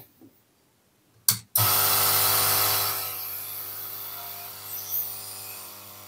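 The vacuum pump of a Yihua 968 DA+ III desoldering station, with the case off, starts abruptly after two clicks. It runs with a loud mains hum and a rush of air that gradually eases over the next few seconds.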